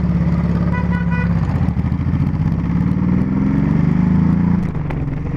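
Motorcycle engine running under way, steady at first, then rising in pitch as it speeds up and dropping back shortly before the end. A short run of beeps sounds about a second in.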